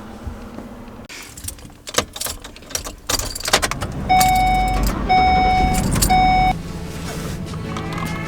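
Clicks and a jangle of keys, then a vehicle's warning chime beeping three times over a low rumble that stops abruptly after the third beep, leaving a steadier hum.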